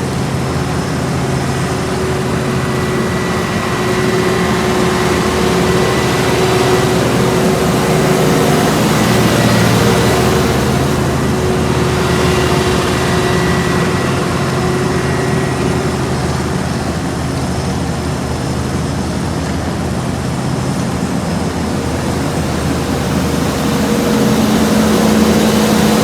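Heavy diesel asphalt-paving machinery running steadily: a constant engine drone with a held whine over it, and a lower hum joining in near the end.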